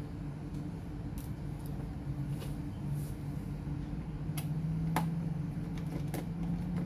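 Scattered light clicks and taps of small hand tools on a laptop's plastic case, about six in all with the sharpest about five seconds in, over a steady low hum.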